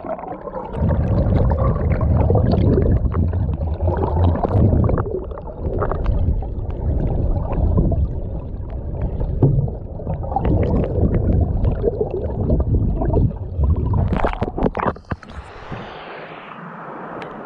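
Muffled rumbling and gurgling of creek water heard through a camera held underwater, with many small clicks and knocks. About fifteen seconds in it changes suddenly to a softer, steady hiss.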